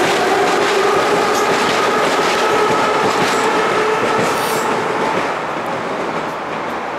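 Metro train pulling out and accelerating away: a whine from its motors creeps up in pitch over the clatter of the wheels on the rails, and the sound fades over the last couple of seconds.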